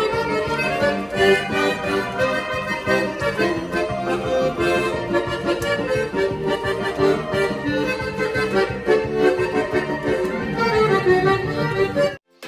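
Accordion playing an instrumental passage of a folk song, melody and chords over a steady bass rhythm, cutting off suddenly near the end.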